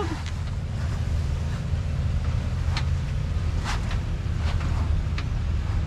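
Ford F-250 Super Duty pickup crawling slowly over rock, its engine a low steady rumble mixed with wind on the microphone, with a few faint clicks in the second half.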